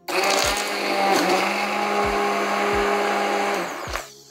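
Immersion hand blender running steadily in a glass bowl of strained tomato, chopping chunks of stale bread into it; it starts abruptly and cuts off about three and a half seconds in.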